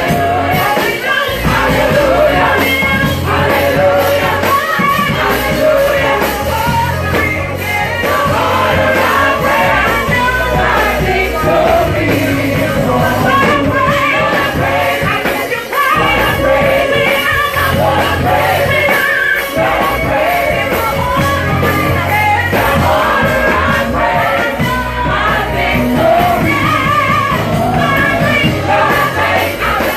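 Gospel praise and worship song performed live: lead and group vocals singing over a full band with bass and drums.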